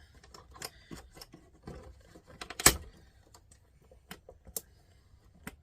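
Small metal and plastic parts clicking and rattling as a stereo deck mechanism is taken apart by hand, with one sharp, louder click about two and a half seconds in.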